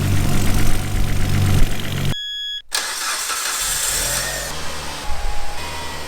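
Nissan R33 Skyline's straight-six engine idling steadily. About two seconds in, the sound cuts off briefly with a short tone, then the engine carries on quieter.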